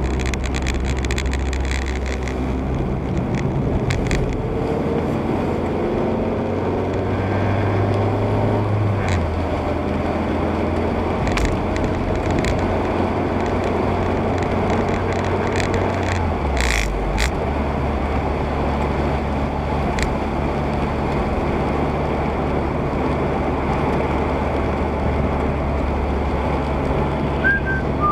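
Car driving on a wet road at night, heard from inside the cabin: a steady low engine hum under tyre and road noise. The engine's pitch steps down about a third of the way in and again a little past halfway, and a few sharp clicks come through in between.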